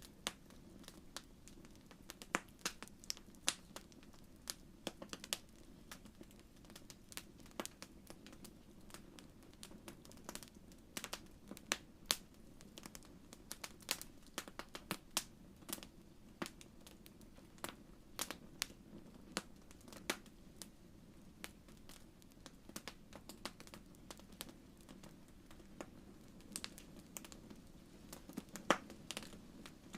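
Wood fire in a fireplace crackling: frequent irregular sharp pops and snaps over a faint steady low hum.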